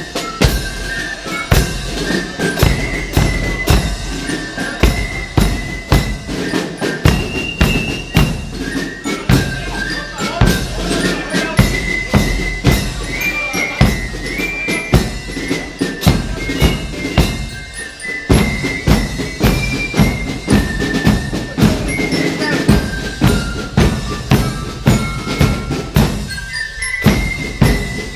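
Spielmannszug (drum and fife corps) playing a march: snare and bass drums beat a steady marching rhythm under a high melody, with two short drops in the drumming in the second half.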